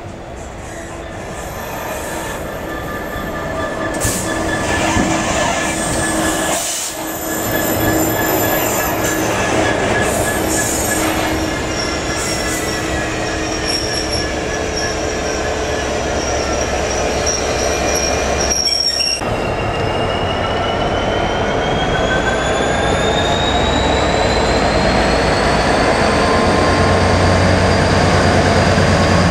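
Convoy of GBRf Class 66 diesel-electric locomotives, with EMD two-stroke V12 engines, arriving at a station with steady high-pitched squealing as they slow. After a cut about two-thirds in, the lead locomotive's engine powers up to pull away, a whine climbing steadily in pitch over the diesel rumble as it grows louder.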